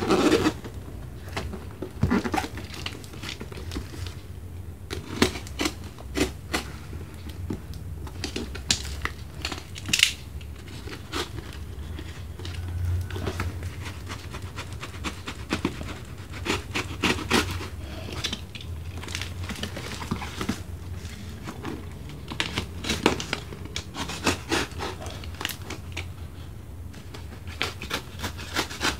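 A utility knife cutting and scraping through packing tape and plastic wrap on a small cardboard parcel, with crinkling and irregular clicks and taps as the parcel is handled and turned. A steady low hum runs underneath.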